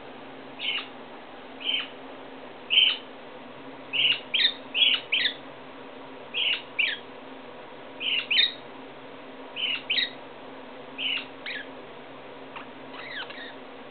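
Lineolated parakeet giving short, high chirps, singly and in quick pairs, some sliding down in pitch, with pauses of about a second between them and the last few fainter. A steady low hum runs underneath.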